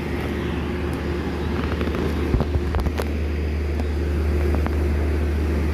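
Steady low hum of the stopped train's idling diesel engine, with a few light clicks about two to three seconds in.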